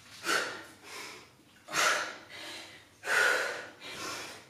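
A woman's heavy breathing from exertion during a kettlebell hang clean: about five sharp, forceful breaths in and out in quick succession.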